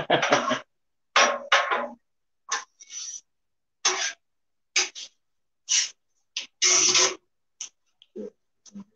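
Metal spatula scraping across the steel top of a Blackstone flat-top griddle, working the oil over the surface in a dozen or so short, separate strokes.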